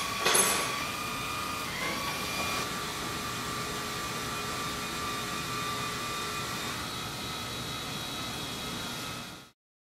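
Electric motors and linear actuators of a robotic sculpture whirring with a steady whine as its arms move, with a brief louder rushing burst just after the start and a small shift in pitch about two seconds in. The sound cuts off suddenly near the end.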